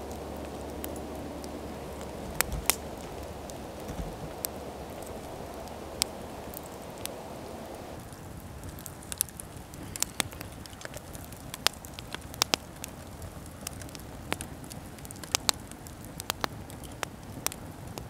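Wood campfire crackling, with sharp pops scattered irregularly through it.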